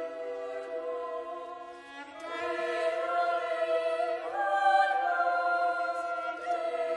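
Boys' choir singing long held chords. A phrase fades out about two seconds in, a new chord enters just after, and the voices step up in pitch about four seconds in.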